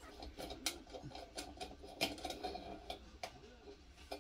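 Faint metallic clicks and light scraping as the brass pump is worked out of a 1942 US military gasoline pocket stove.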